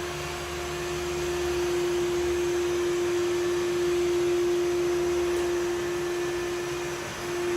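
Samsung POWERbot robot vacuum running: a steady motor whine with one held tone over the hiss of its suction airflow, dipping briefly near the end.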